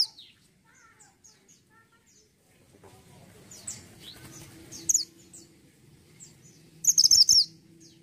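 Caged mantenan gunung songbird singing: scattered faint chirps, then short, rapid, high warbled phrases about four and five seconds in, and a louder burst near the end.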